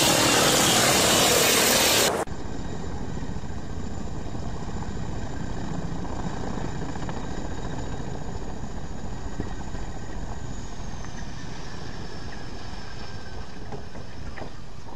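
A loud rushing noise stops abruptly about two seconds in. It gives way to a Boeing CH-47 Chinook tandem-rotor helicopter running on the ground with its rotors turning: a steady rotor and turbine sound with a faint high whine that slides down in pitch about ten seconds in.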